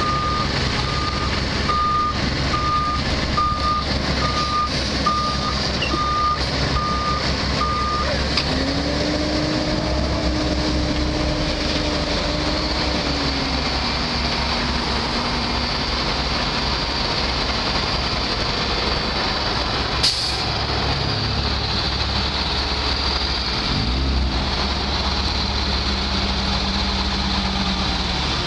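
Diesel engines of an asphalt paver and a dump truck running steadily at work. A backup alarm beeps about once a second for the first eight seconds. A whine rises and falls from about nine to thirteen seconds in, and a sharp click comes about twenty seconds in.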